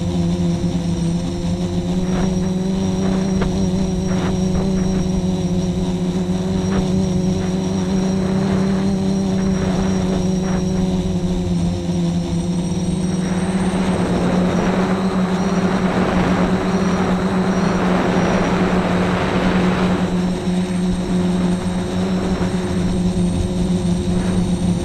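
Multirotor FPV drone's electric motors and propellers humming steadily, heard close up from a camera mounted directly on the frame. From about halfway in, a rushing noise swells over the hum for several seconds, then drops back.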